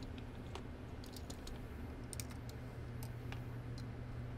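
Light, scattered clicks and taps of handheld radio antennas being picked up and set down against each other on a cloth, over a faint steady low hum.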